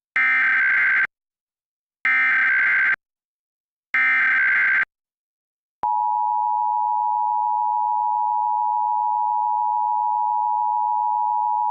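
Emergency Alert System SAME header: three screeching digital data bursts of about a second each, sent two seconds apart. About six seconds in, the steady two-tone EAS attention signal starts and holds. Together they open a nationwide EAS test alert.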